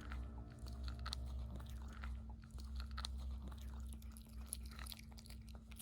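A Pomeranian chewing a dog treat, with irregular small clicks as it bites.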